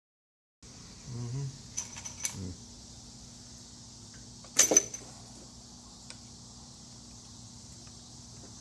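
A few metallic clinks from tools and engine parts being handled, the loudest a sharp ringing clink a little under five seconds in. Behind them is a steady high chirring of crickets.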